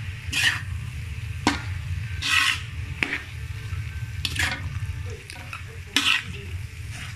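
Metal spatula scraping and tossing prawns and mustard greens around a metal wok, about six sharp scrapes spread out, over a light sizzle from the frying.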